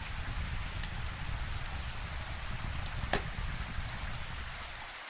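Steady rain falling, with scattered sharp crackles and one louder pop about three seconds in from a crackling wood fire. The low rumble underneath drops away at the very end.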